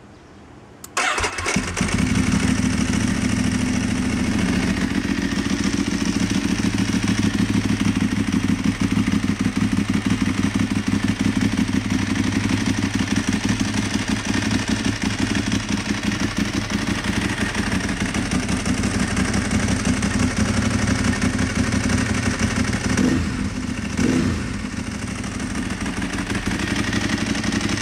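Motorcycle engine breathing through an aftermarket silencer, starting about a second in and then idling with a steady, deep pulsing exhaust beat. Near the end the throttle is blipped twice in quick succession before it settles back to idle.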